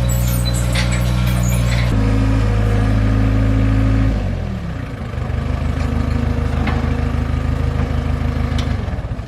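New Holland LX565 skid steer's diesel engine running at high revs, its pitch stepping once and then falling about four seconds in, as it settles to a lower, steady run. The sound drops off sharply just before the end.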